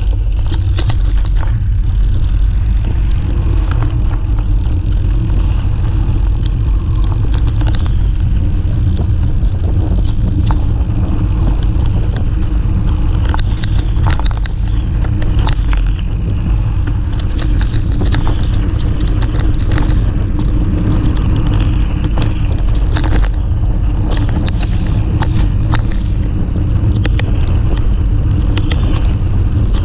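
Wind rumbling on an action camera's microphone at riding speed, with mountain-bike tyres rolling over a gravel track. Scattered clicks and rattles from the bike run through it.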